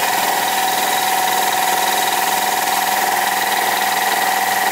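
Kobalt 80-gallon, 5 hp two-stage electric air compressor running under load: a loud, steady mechanical drone with a constant whine and no change in pitch.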